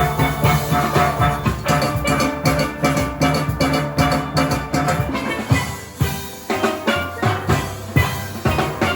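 Live band music: pitched instruments playing over a steady drum beat.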